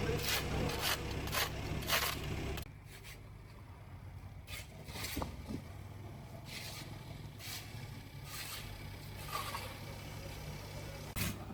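An idling engine cuts off suddenly about two and a half seconds in. Repeated scraping and rustling sounds run through the whole stretch.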